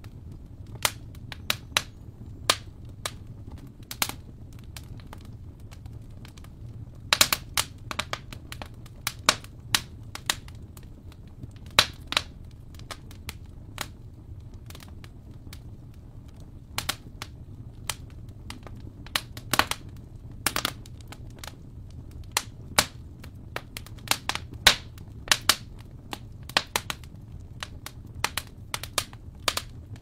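Wood fire in a fireplace crackling: irregular sharp pops and snaps, some in quick clusters, over a steady low rumble of the flames.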